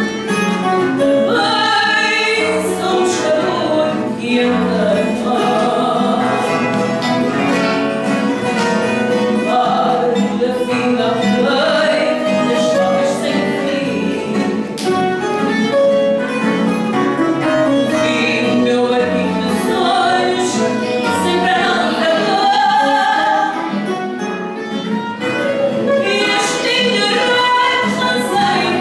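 A woman singing in Portuguese, holding long notes, accompanied by a Portuguese guitar and a classical guitar.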